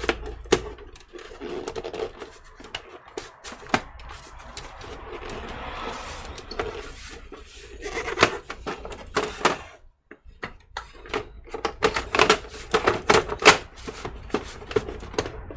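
Irregular clicks, taps and knocks of computer case parts being handled, with a soft rustle in the middle and a dense run of clicks in the second half.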